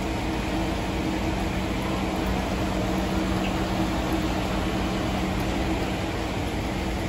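Steady rushing noise of commercial kitchen ventilation, the exhaust hood fans over the cooking line, with a low steady hum.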